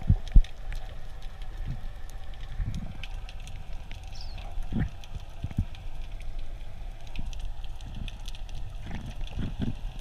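Underwater ambience picked up through a camera housing: a steady low rumble with many scattered faint clicks and crackles, and a few dull knocks, the loudest near the start and around the middle.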